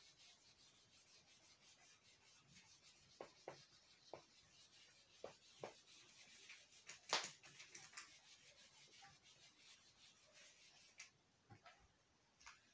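Felt whiteboard eraser wiping across a whiteboard: a faint, steady rubbing that stops about eleven seconds in. A few light knocks sound during the wiping, the loudest a little after seven seconds.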